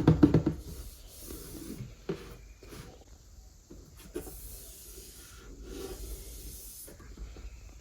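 Packaging being handled during an unboxing: a short loud clatter of knocks at the start, then quieter rubbing and rustling with scattered clicks.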